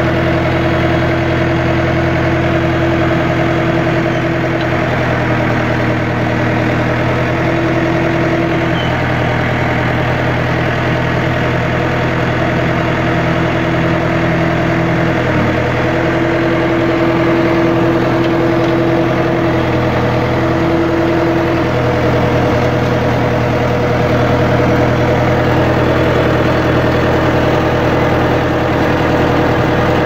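International 125E crawler loader's engine idling steadily.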